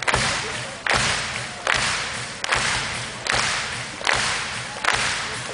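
A large audience clapping in unison in a slow, steady beat, a little under one clap a second. Each clap rings on in the hall until the next.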